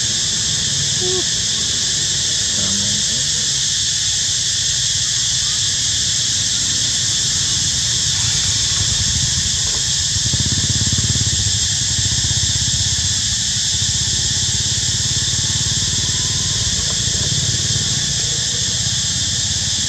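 Steady high-pitched drone of forest insects, over a low rumble that swells for a couple of seconds about ten seconds in.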